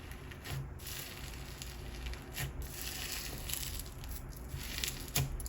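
Black Snow Fizz perlite slime being worked by hand, crackling and crunching with a few small pops.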